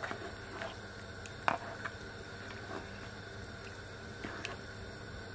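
A cooking spoon stirring meat through thin curry broth in a nonstick pan: soft liquid stirring with scattered light clicks of the spoon against the pan, the sharpest about a second and a half in, over a steady faint hiss.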